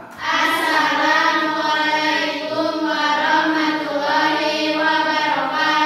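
Sung vocals, a slow melody held without a break.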